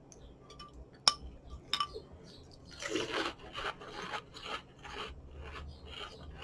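A sharp click about a second in, then Cinnamon Toast Crunch cereal crunching as it is chewed, in short rasping bursts about twice a second.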